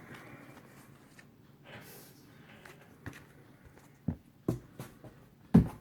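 Comic books in plastic bags with backing boards being handled: faint rustling and a few short taps and knocks, the loudest one near the end.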